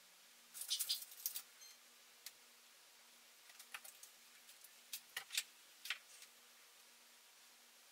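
Faint, scattered rustles and light clicks of wet hair being wound onto heatless curling rods by hand. There is a small cluster about a second in, then single soft clicks every second or so.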